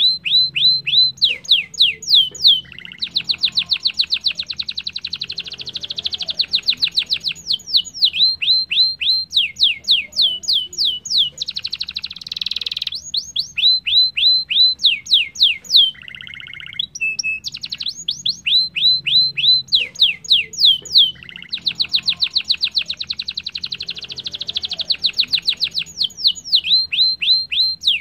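Domestic canary singing: runs of quick, downward-sweeping whistled notes alternate with dense, rapid trills. The same sequence of phrases starts over about halfway through.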